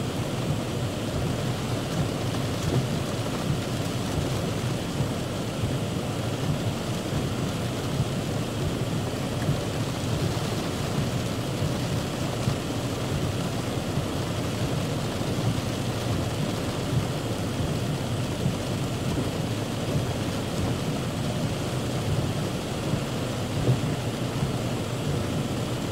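Heavy rain falling on a car's roof and windshield, heard from inside the car: a dense, steady patter with many small louder drop hits.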